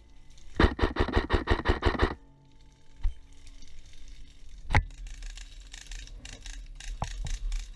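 Airsoft rifle firing a quick string of about ten sharp shots, then a few single shots, with faint fast ticking of more fire in the last few seconds.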